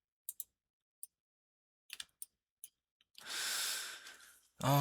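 Scattered soft mouse clicks, about eight over three seconds, then a long breathy sigh about three seconds in, with a hummed voice beginning right at the end.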